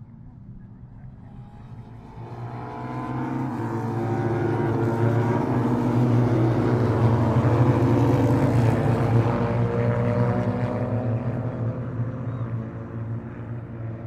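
A pack of classic racing sidecar outfits passing at speed, several engines at once, swelling over a few seconds and fading away.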